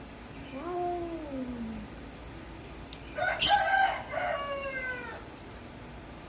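Cats calling: a falling meow about half a second in, then a louder harsh cat cry about three seconds in that starts with a hiss and trails off in a falling wail over about two seconds.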